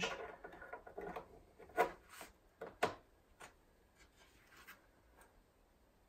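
Handling noise of computer memory being worked on: a run of light clicks and rubbing as RAM sticks are handled at the iMac's open memory compartment, with two sharper clicks about two and three seconds in, then only faint small sounds.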